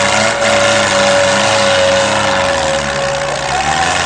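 Tractor engines running hard under load over a loud, dense din. A long held note sounds through most of it and turns wavering near the end.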